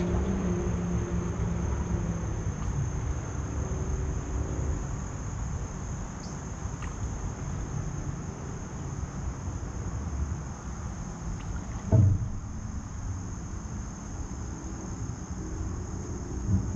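Insects trilling steadily in one high, even tone, over a low rumble. A single knock sounds about twelve seconds in.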